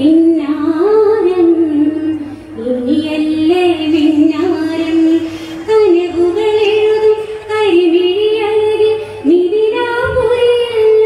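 A woman singing a Malayalam Onamkali song, one melodic line with sliding, ornamented notes in phrases of about three seconds.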